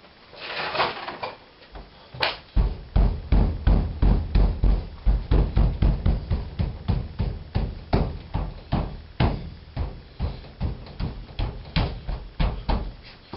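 Rapid run of dull thumps, about three or four a second, as the Wolseley 6/90's rear windscreen glass is knocked home into its rubber seal. A brief rustling scrape comes just before the thumps begin.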